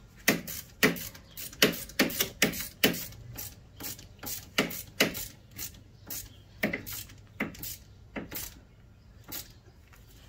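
Hand ratchet wrench worked in short strokes, giving a sharp click roughly every half second at an uneven pace. The clicks thin out near the end.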